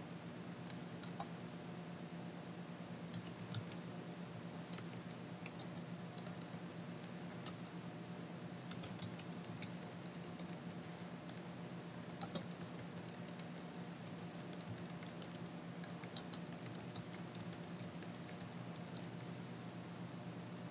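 Computer keyboard being typed on: quick runs of key clicks in irregular bursts with short pauses between them, over a faint steady low hum.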